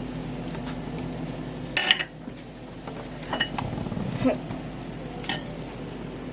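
Spoon and dishes clinking: one sharp clink about two seconds in, then a few lighter ones, over a steady low hum.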